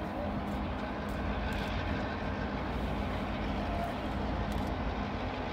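Diesel locomotives of an approaching train, their engines making a steady low drone.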